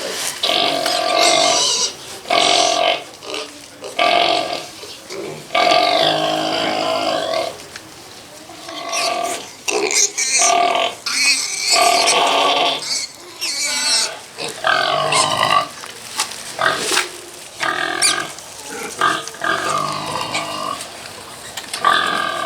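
Pigs squealing loudly, high-pitched calls rising and falling one after another with short breaks between them.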